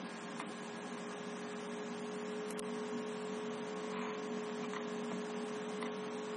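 Steady electrical hum with a constant background hiss, and a few faint ticks.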